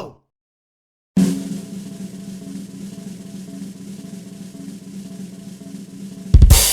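Drum roll sound effect running steadily for about five seconds, then ending in a loud crash that rings away, the kind of fanfare cue used to build up to a reveal.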